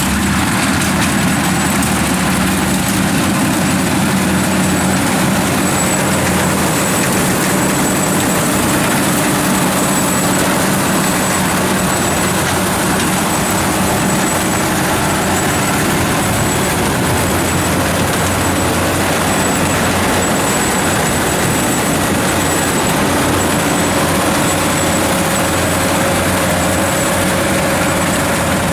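Kubota DC-93 combine harvester running steadily as it harvests rice: its diesel engine and threshing machinery make an even, unbroken mechanical noise with no rise or fall.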